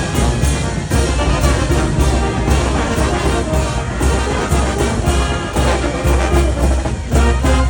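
Mexican banda brass band playing: trumpets and trombones over a pulsing low bass line.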